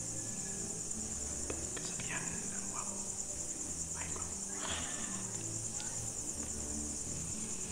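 Crickets trilling in a steady, high, continuous chorus. Faint background music and a couple of brief vocal sounds sit beneath it.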